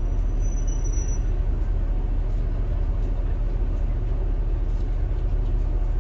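Shuttle bus driving, heard from inside the cabin: a steady low engine and road rumble.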